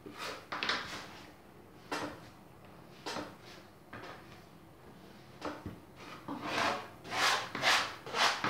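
Hands kneading pastry dough on a table: rubbing, pressing strokes, a few scattered ones at first, then about two a second and louder from about two-thirds of the way through.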